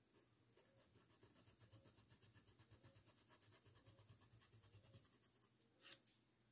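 Faint, quick scrubbing of a paintbrush on cloth, several strokes a second, as paint is blended on the fabric, ending with a single sharp click near the end.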